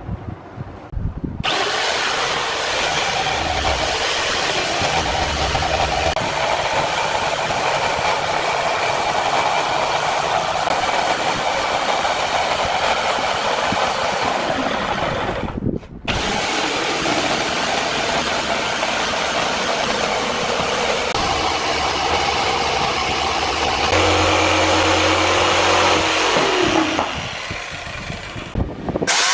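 Electric jigsaw cutting through a plywood sheet, running steadily with one short break about halfway through, then winding down near the end.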